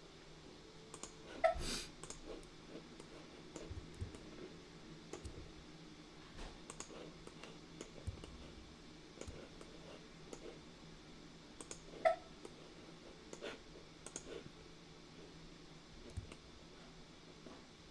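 Computer mouse clicking now and then, faint and irregular, with two louder clicks about a second and a half in and about twelve seconds in.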